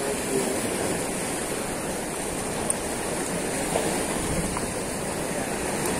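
Sea surf washing over the shoreline rocks: a steady rushing noise.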